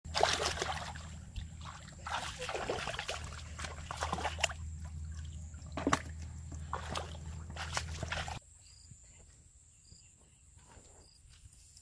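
Muddy water sloshing and splashing in irregular bursts as hands grope through a shallow pool, over a low steady hum. About eight seconds in the splashing stops abruptly and a faint high chirp repeats about once a second.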